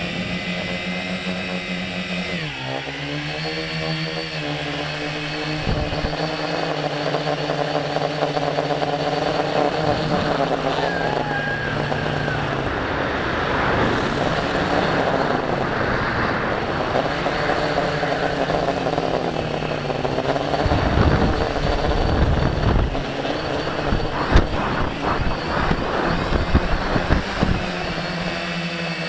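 Tricopter's electric motors and propellers whirring steadily; the pitch drops about two and a half seconds in and wanders with the throttle. From about twenty seconds in, a rough low rumble with scattered knocks comes in under the whir.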